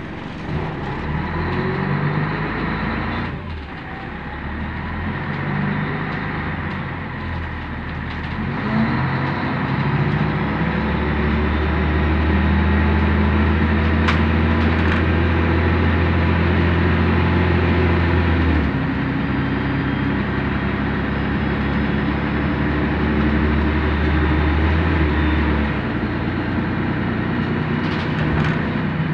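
Scania N113DRB double-decker bus's 11-litre straight-six diesel engine running as the bus drives along, heard from the upper deck. The engine note steps up and down in pitch several times, and a strong low drone builds about ten seconds in, cuts off sharply about two-thirds of the way through, returns, and drops away again near the end.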